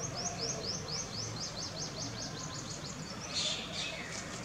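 A bird's rapid series of short, high chirps, about five or six a second and speeding up. About three seconds in comes a louder, harsher burst.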